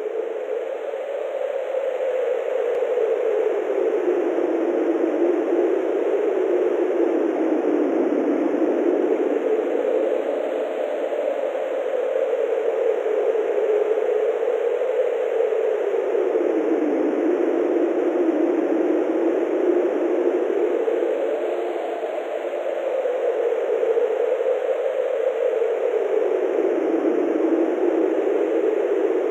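Synthesized wind sound effect: a steady rush of noise with a stronger band that slowly drifts up and down in pitch, like gusting wind.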